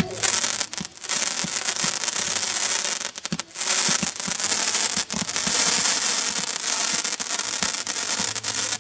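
Fireworks crackling and hissing densely and without a pause, except for brief breaks about three and five seconds in.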